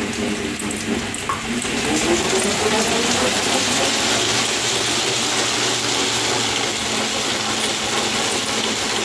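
Dog Trotter K9 slat mill running under a dog: the slatted belt and rollers give a steady rushing whir, with a whine that rises in pitch over the first few seconds.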